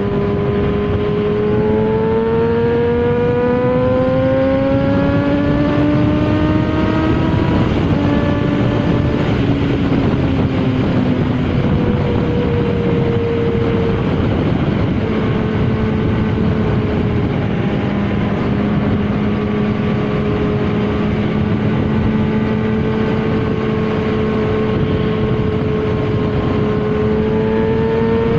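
Yamaha XJ6 600 inline-four motorcycle engine with an aftermarket Jeskap exhaust, running under way. Its pitch climbs over the first seven seconds as it accelerates, then settles into a steady cruise and rises again near the end, over wind and road noise.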